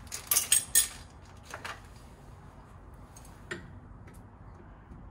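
Hand tools and plumbing fittings being handled: a quick run of sharp clinks in the first second, then a couple of single clicks.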